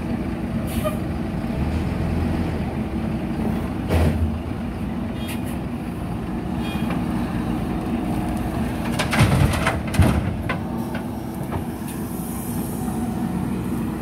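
JCB 3DX backhoe loader's diesel engine running steadily under load as the backhoe digs and swings. A sharp knock comes about four seconds in, and a burst of loud clattering hits comes around two thirds of the way through, as the bucket dumps its load of earth into the steel tipper truck body.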